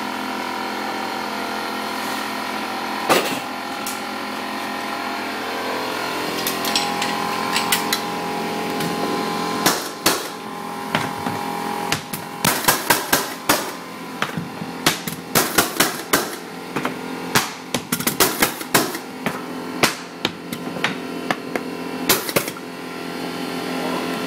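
Pneumatic hardwood flooring nailer being struck with a mallet, driving nails into floorboards: a few isolated knocks at first, then a quick run of sharp bangs from about ten seconds in until near the end, over a steady machine hum.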